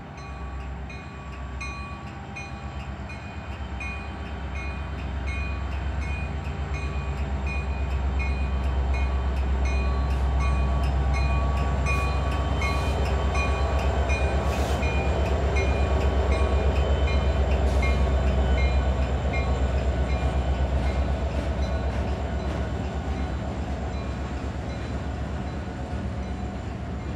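Union Pacific diesel locomotives hauling a double-stack container train approach and pass, their low engine drone building to its loudest about halfway through, then the stack cars rolling by with steady wheel-on-rail noise. A faint repeating high-pitched ding sounds throughout.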